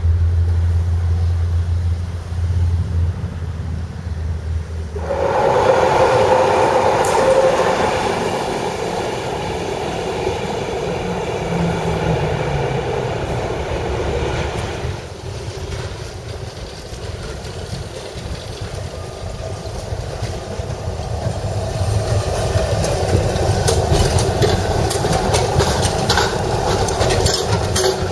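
Budapest trams running on their rails: a steady rumble of wheels and traction gear, with wheel-on-rail clicks and clatter building over the last few seconds as a tram passes close. A low steady drone fills the first five seconds before the sound changes abruptly.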